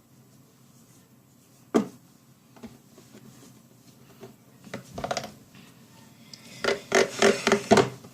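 Homemade borax slime being mixed and worked, giving short sticky squishing and crackling sounds in bursts, loudest and densest near the end. A single sharp click about two seconds in.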